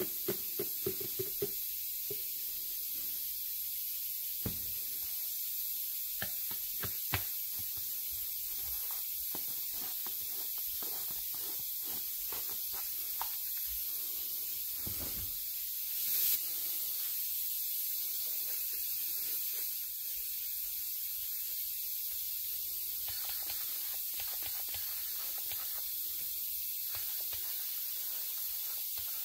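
Steady hiss of air from a powder coating gun spraying powder, with plastic clicks and knocks in the first seconds as the powder cup is fitted to the gun, and a few more knocks later. The hiss swells for a few seconds about halfway through.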